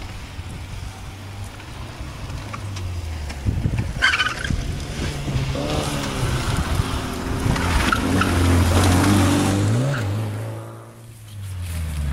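Škoda 105 rally car's engine being driven hard, its pitch rising and falling as the revs climb and drop. The revs build to a peak near the end, then fall away sharply before picking up again. A short sharp noise comes about four seconds in.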